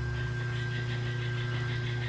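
Electric potter's wheel motor running with a steady hum, overlaid by a fast, even pulsing.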